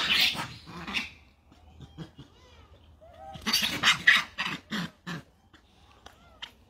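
Macaques screaming during a squabble: a harsh burst of screams at the very start, then a run of several short screams about three to five seconds in.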